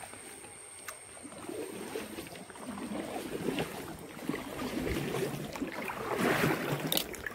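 Coracle paddling: a single wooden paddle dipping and pulling through river water beside the woven boat, splashing in uneven surges that grow louder toward the end.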